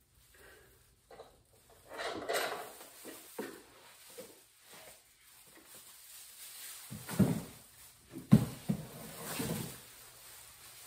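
Plastic shopping bags rustling as they are handled, then a few dull thuds as the bags and groceries are set down on the floor, the two loudest thuds coming late.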